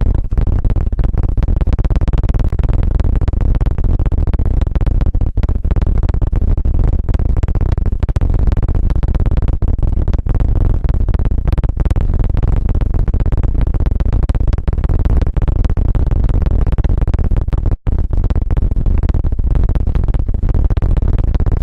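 Loud, fast fluttering rumble right against the microphone, the ASMR 'helicopter' trigger made by rapid rubbing or tapping on the mic. It breaks off for an instant about eighteen seconds in.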